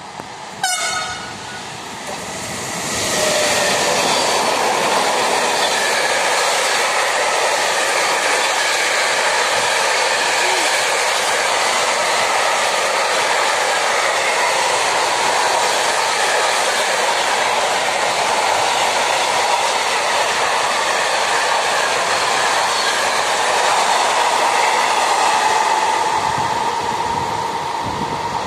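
Electric trains on a main line: a short train-horn toot about half a second in, then from about three seconds the loud, steady rushing and rumbling of a train running through. Near the end it is a ČD Pendolino high-speed unit passing at speed.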